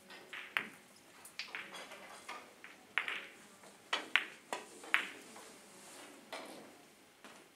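Carom billiard balls clicking against each other and against the cue tip in three-cushion play: a run of sharp clicks, the loudest about half a second, three, four and five seconds in.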